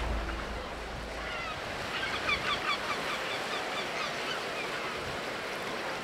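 A large flock of seabirds calling in many short, overlapping cries over a steady wash of surf; the calls are thickest around two to three seconds in. Background music fades out in the first moment.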